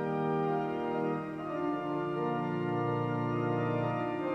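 Slow background music of sustained organ chords, the chord changing a few times.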